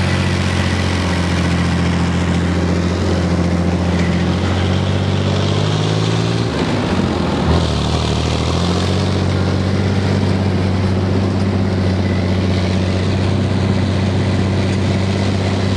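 A BVP-1 infantry fighting vehicle's UTD-20 six-cylinder diesel engine running steadily under way, heard from on top of the hull. About six seconds in, its note breaks up and shifts for roughly two seconds, then settles back to a steady run.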